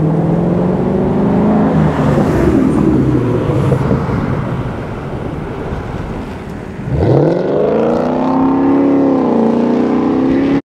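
A vehicle accelerating over steady rushing noise: a pitched tone climbs slowly in the first couple of seconds. About seven seconds in, a second tone sweeps sharply up from low and levels off.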